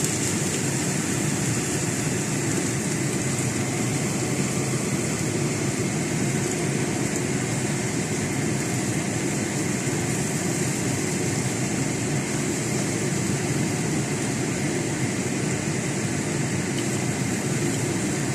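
Chives and eggs frying in a pan, a steady, unbroken sizzle.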